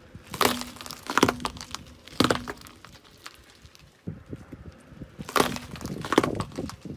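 Car tyre rolling over and crushing cucumbers on concrete: a series of sharp, wet crunching cracks in two runs, the second beginning about five seconds in after a short lull.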